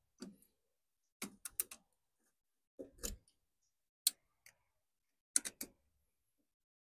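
Short clicks and snaps of rubber spark plug wire boots being pushed and twisted onto the towers of a clear plastic distributor cap, in small clusters every second or so.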